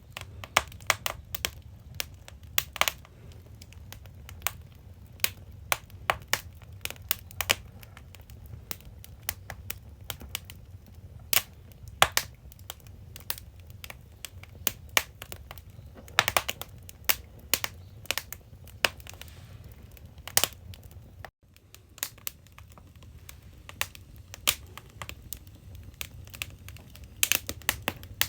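Firewood burning in a traditional Korean agungi firebox, crackling and popping with irregular sharp snaps over a low steady rumble. The sound cuts out briefly about 21 seconds in.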